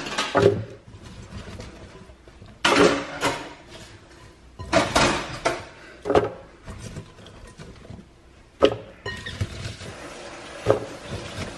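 Handfuls of chopped cucumber, celery and leafy greens dropped into an empty plastic blender jar: a series of short rustles and knocks, one to two seconds apart.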